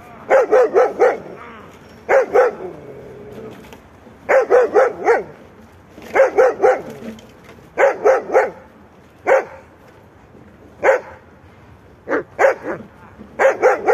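A dog barking in quick runs of three to five barks, one run every second or two, thinning to single barks and pairs in the second half. It is a shepherd-type dog in protection work, barking at a helper in a bite suit.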